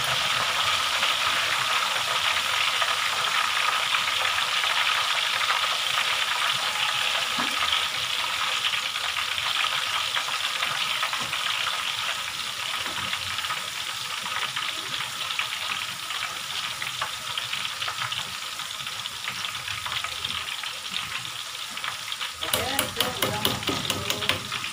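Tofu cubes deep-frying in a wok of hot oil, sizzling hard after a splash of their soaking water and stirred now and then with a strainer. The sizzle slowly dies down as the water boils off and the tofu dries.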